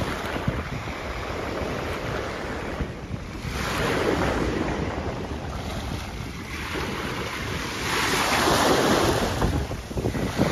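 Small sea waves breaking and washing up a sandy beach, with wind buffeting the microphone. The wash swells louder twice, about three and a half seconds in and again around eight seconds in.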